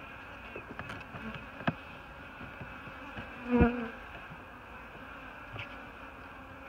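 Honeybees buzzing steadily over the open top bars of the hive, with a louder buzz for about half a second midway. A single sharp tap about a second and a half in.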